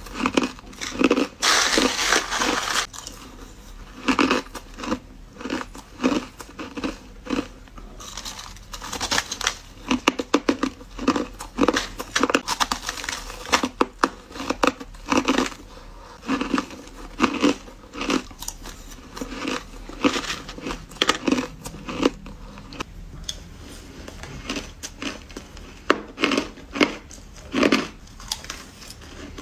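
Hard crushed ice being bitten and crunched between the teeth, close to the microphone: a continuous run of sharp, irregular crunches, with a longer stretch of crunching about two seconds in.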